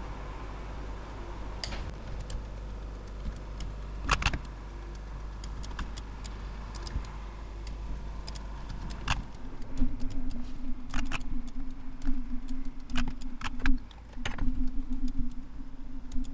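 Irregular keystrokes and clicks on a computer keyboard, scattered taps that grow busier about ten seconds in. A low steady hum comes in at the same point and drops out briefly near the end.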